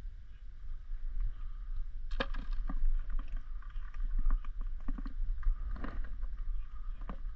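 Wind rumbling on the microphone, with a run of irregular clicks and rustles from about two seconds in as the fishing reel winds the bobber up to the rod tip and the rod is handled.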